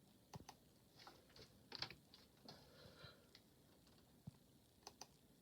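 Faint, irregular clicks and ticks from a bicycle's moving parts.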